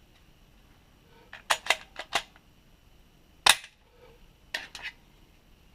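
Sharp clicks and clacks of hard plastic and metal pistol parts being handled: a quick run of about five clicks a second or so in, one louder clack in the middle, then three lighter clicks near the end.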